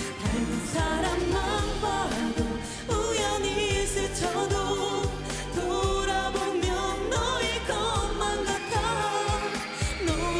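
A woman singing a Korean pop song into a microphone over a backing track with a steady beat.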